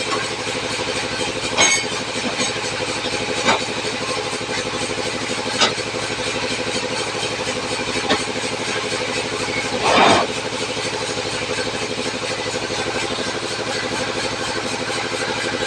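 Tractor engine running steadily, with a sharp knock every two seconds or so and a louder, brief noisy burst about ten seconds in.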